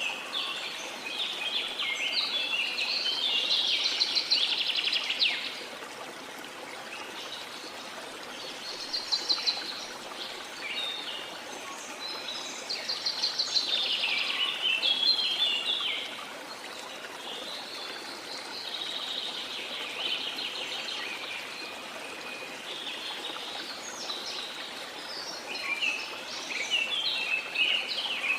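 Steady rush of falling water with tropical rainforest birds singing over it in repeated bouts of quick, chattering trills and calls, loudest about four seconds in and again around fifteen seconds in.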